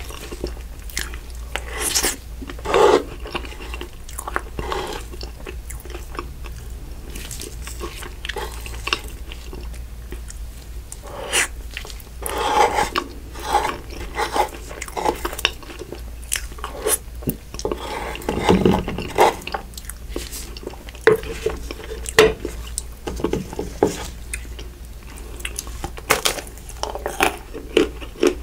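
Close-miked eating sounds: a person chewing ice cream, with wet mouth smacks, lip sounds and soft crunches of cookie crumbs and crunchy chocolate coating, coming irregularly. A steady low hum runs underneath.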